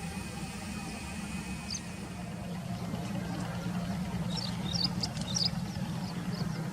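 Alco diesel locomotive engine running steadily, a low even drone. A few short high chirps come in about four to five seconds in.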